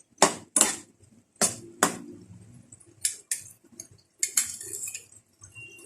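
Metal utensil knocking and scraping against a cooking pan: about eight sharp clinks at uneven spacing, some in quick pairs.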